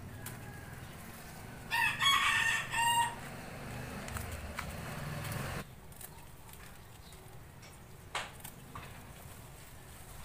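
A rooster crowing once, about two seconds in: a single call of about a second and a half in three parts. Later comes one sharp click.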